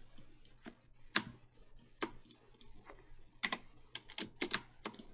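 Computer keyboard keys and mouse buttons clicking in a dozen or so scattered, irregular taps while values are entered and an object is resized on screen.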